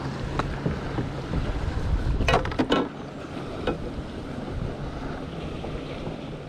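Wind on the microphone and water lapping around a kayak, a steady rushing noise. A little over two seconds in comes a brief cluster of sharp clicks and knocks.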